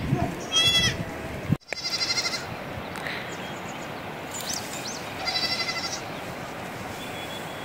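Small livestock at a shepherd's camp bleating: three high, quavering bleats, one about half a second in, one about two seconds in and one about five seconds in.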